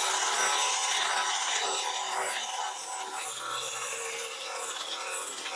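Battery-powered telescopic hedge trimmer running with a steady electric buzz as its blades work, the sound easing off a little partway through.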